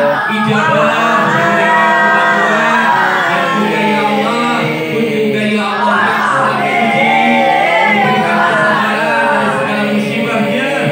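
A man chants a melodic Islamic devotional prayer through a microphone and loudspeaker, with other voices joining in the chant.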